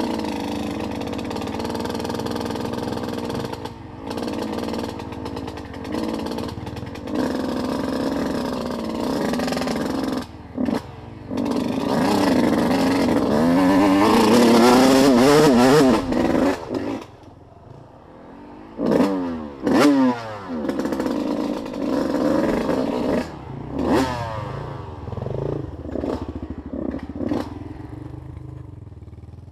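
Off-road vehicle engine under way on a trail, revving up and down with the throttle. It pulls hard and climbs to its loudest about halfway through, drops off suddenly, gives a few short blips of throttle, then fades.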